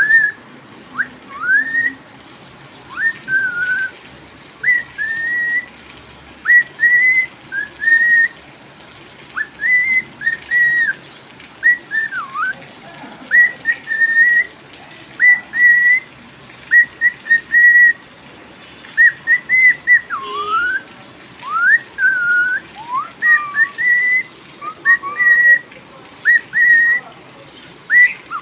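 Cockatiel whistling a long series of short notes, mostly quick rising whistles with a few downward swoops, one or two a second.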